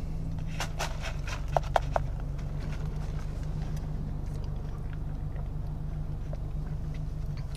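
A plastic straw pushed down through the domed lid of an iced latte cup, with a few sharp clicks and squeaks in the first two seconds, then quiet sipping through the straw over a steady low hum.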